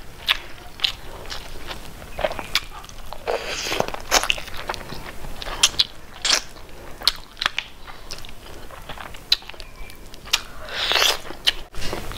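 Close-miked eating: a mouthful of rice with crisp fried strands being chewed and crunched, with many sharp wet mouth clicks and smacks.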